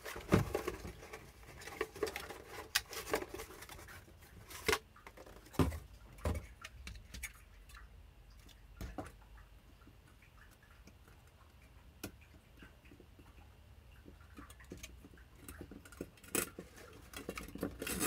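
Light handling clatter of computer hardware: scattered clicks, taps and rustles as small parts and a metal CPU heatsink are picked up and set down on the desk. Busiest in the first few seconds and again near the end, quieter in the middle.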